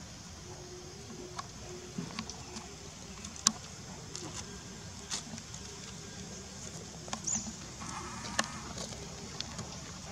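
Outdoor ambience with scattered light clicks and rustles, the loudest a sharp tick about three and a half seconds in, and one short high squeak about seven seconds in.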